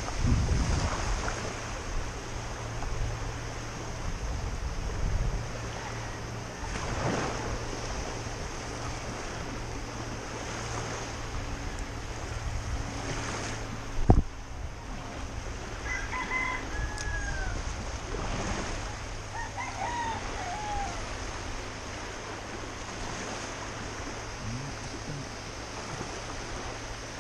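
Small waves washing over a rocky shore, with wind on the microphone. About halfway through there is a single sharp knock, followed by a few short, faint bird calls that rise and fall.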